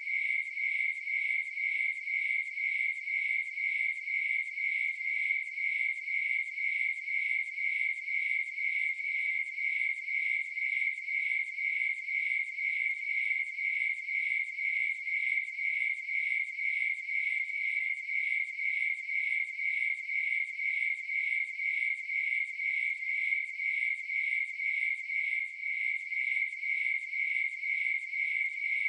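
Crickets chirping steadily at one high pitch, in an even, unbroken rhythm.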